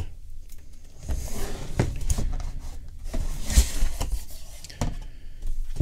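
Cardboard retail box being opened by hand: the lid scraping and rustling as it is worked off, with several knocks against the desk, the loudest a thump about three and a half seconds in.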